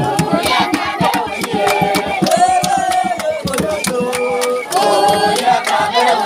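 A group of voices singing together in long, held notes over fast, steady percussion.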